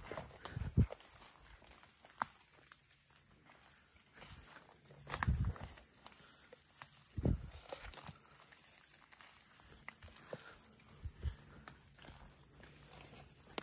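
Insects droning steadily in a high-pitched band, with a few scattered low thumps, the most prominent near the start and about five and seven seconds in.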